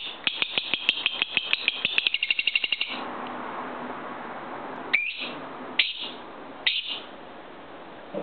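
Lovebird singing: a fast run of high chirps for about three seconds, then three short separate calls a little under a second apart.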